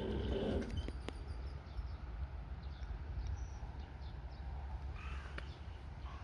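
A railway level-crossing warning bell stops about half a second in. After it, crows caw a few times over a low steady rumble.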